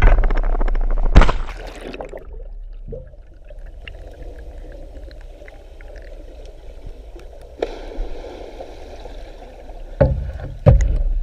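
Water splashing and sloshing around a GoPro in its waterproof housing, with a sharp knock about a second in. This settles into a steady, muffled rush of water, broken by a few more splashes near the end.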